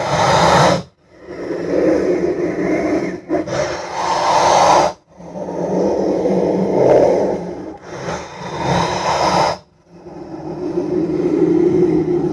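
A run of separate film sound effects, each a few seconds of harsh, rasping, growl-like noise, cut apart by short silences about one, five and ten seconds in.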